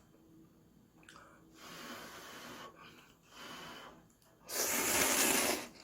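Three noisy rushes of air drawn or blown through the mouth over hot ramyun noodles while eating. The third, about four and a half seconds in, is much the loudest and longest.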